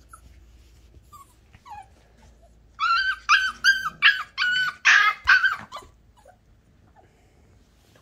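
Puppies yipping while play-wrestling: a quick run of about seven short, high-pitched yips lasting about three seconds, starting about three seconds in, after a few faint squeaks.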